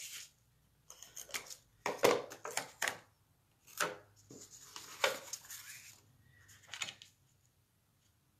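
Cardstock being handled on a craft mat: paper sliding, rustling and tapping against the table in several short clusters over the first seven seconds, then going quiet.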